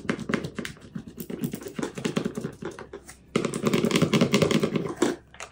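Clear transfer tape with a vinyl decal being rubbed with a plastic scraper and peeled off its gridded backing: a run of short scratchy strokes, then about three seconds in a louder, continuous crackle of tape pulling away that lasts nearly two seconds.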